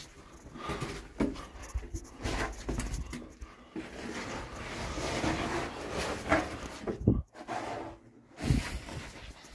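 Heavy breathing of a person moving through a tight cave passage, with scraping and a few knocks of body and gear against the rock.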